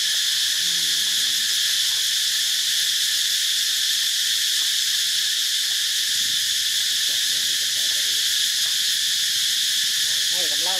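A steady chorus of forest insects: an even, high-pitched hiss that never pauses.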